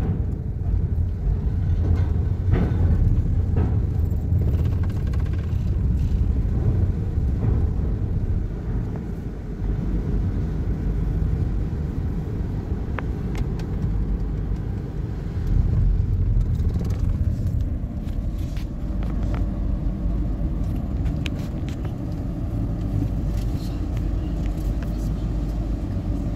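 Low rumble of a car's engine and tyres, heard from inside the cabin, as it drives slowly over steel loading ramps onto a ferry's car deck. A few sharp clanks come in the first few seconds, as it crosses the ramp plates.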